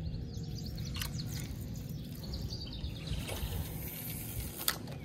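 Birds chirping faintly over a steady low rumble, with a couple of sharp clicks, one near the end.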